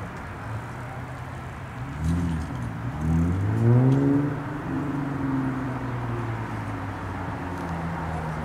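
An engine revving up, its pitch rising twice in quick succession, loudest about four seconds in, then settling into a steady drone.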